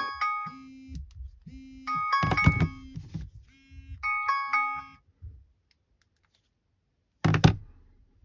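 Android smartphone alarm ringtone playing short chiming note clusters with a low buzz pulsing on and off about once a second; it stops about five seconds in as the alarm is dismissed. A single knock near the end.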